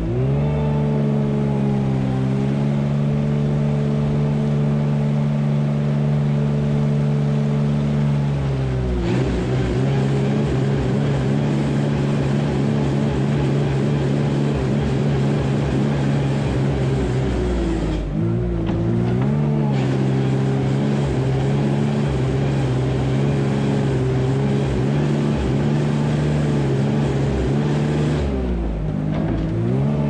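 A tractor's diesel engine running steadily under load. Its pitch briefly drops and comes back up about a third of the way in, again about two-thirds in, and near the end.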